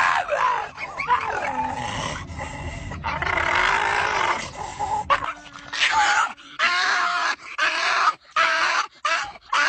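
A dog making strange vocal noises: drawn-out calls that waver up and down in pitch. From about halfway through comes a quick run of short calls, about two a second.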